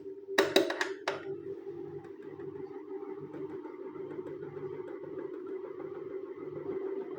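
Multi-bladed electric fan running with a steady motor hum and a faint rhythmic pulsing. Four sharp clicks or knocks come in quick succession within the first second or so.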